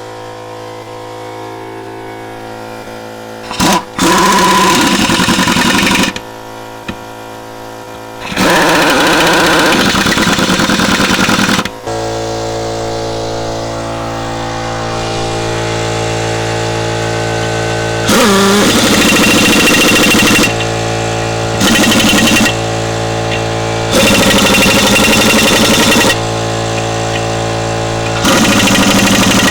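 Pneumatic impact wrench run in about seven bursts of one to three seconds, driving the lug nuts onto a tractor rear wheel, over the steady hum of an electric air compressor that gets louder about twelve seconds in.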